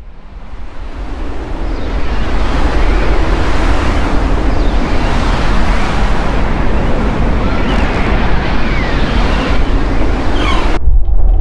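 Sandstorm wind fading in over the first two seconds to a loud, steady rush with faint whistling gusts. Shortly before the end it cuts off suddenly to a muffled low rumble, the storm now heard from inside a closed shelter.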